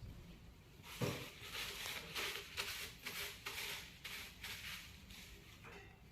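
Cupped-hand chest percussion on a patient's back: a run of soft, rhythmic claps, about three a second. It starts with a heavier thump about a second in and eases off near the end. This is chest physiotherapy, used to loosen phlegm so it can be coughed up.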